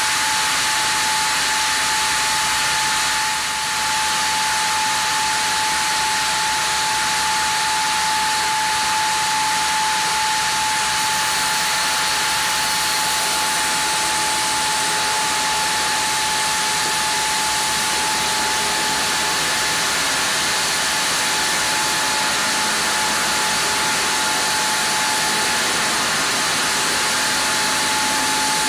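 Sawmill band saw ripping a Japanese kalapanax (sen) log as the carriage feeds it through the blade: a steady loud hiss of the cut with a constant whine.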